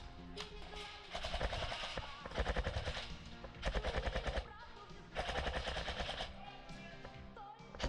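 Airsoft electric guns firing quick strings of semi-auto shots in several bursts of rapid clicks, over background music.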